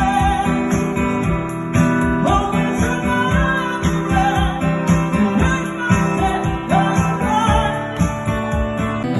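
Upbeat music with a steady beat, jingling percussion and a gliding melody line; the jingling stops near the end as the music changes.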